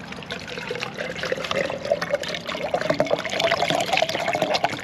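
Water pouring from an upturned plastic bottle into a Jetboil stove's cooking cup, splashing steadily, its pitch rising slightly as the cup fills.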